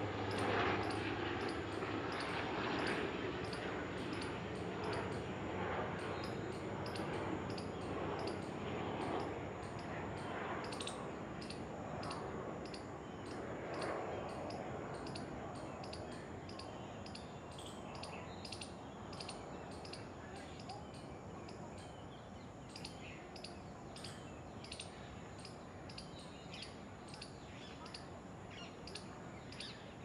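Small birds chirping over and over in short, high notes, over a low background murmur that fades during the first half.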